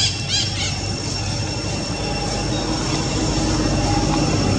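A steady low motor rumble that grows louder toward the end, with a couple of short high squeaky calls at the very start.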